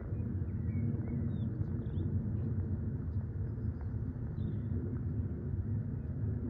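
Jet airliner passing high overhead: a steady low rumble from its engines, with a few faint high chirps over it.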